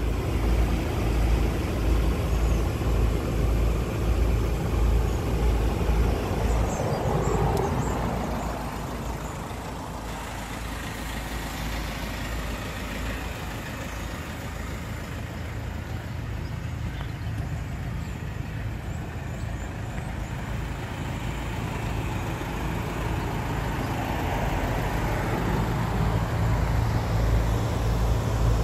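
A vehicle engine idling, a steady low rumble and hum that eases a little in the middle and comes back up near the end.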